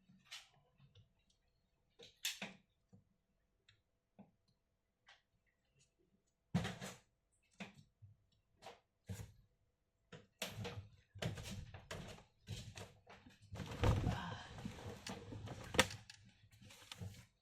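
Laptop case and parts handled during a hardware upgrade: scattered sharp clicks and knocks with short rustling scrapes, coming more often in the second half.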